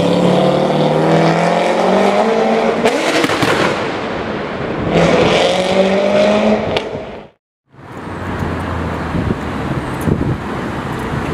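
C5 Corvette's V8 accelerating hard away, its pitch climbing through one gear, breaking for the shift, then climbing again. After a sudden cut, a Ferrari 488's twin-turbo V8 runs low and steady as the car rolls past at low speed.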